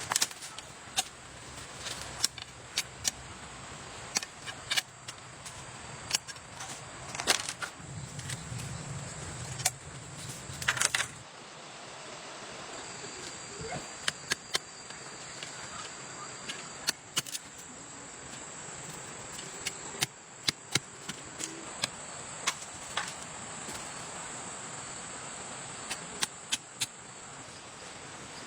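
Irregular sharp knocks and clicks, sometimes in quick pairs, over a steady hiss, with a faint high steady tone joining about halfway through.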